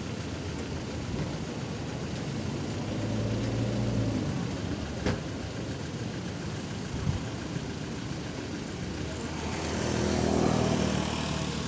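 Motor vehicles passing one after another: an engine swells and fades about three to four seconds in, and a second, louder one passes about ten seconds in, over steady road noise. A single sharp click comes about five seconds in.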